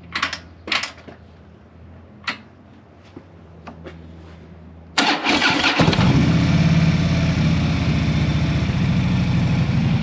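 A few faint clicks, then about five seconds in the starter cranks briefly. The Harley-Davidson touring motorcycle's V-twin engine catches and settles into a steady idle on its first start after the handlebar controls were rewired.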